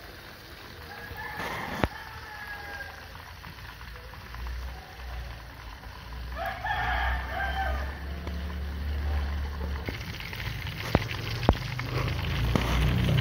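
A rooster crowing twice in the background, about a second in and again midway, with two sharp knocks near the end.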